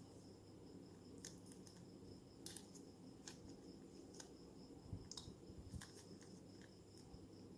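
Near silence: a steady low hum with about a dozen faint, sharp clicks and ticks at irregular intervals, the strongest about two and a half seconds in and around five seconds in.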